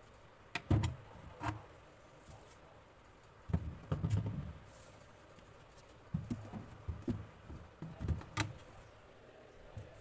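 Apples and pomegranates being set down one by one on a plastic refrigerator shelf: soft thumps with light clicks, in several clusters.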